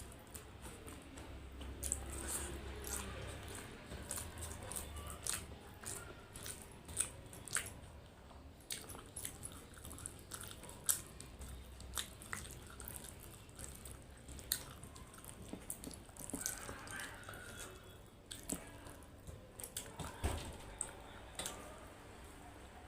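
A person eating: chewing and biting food with many short, irregular wet mouth clicks and smacks.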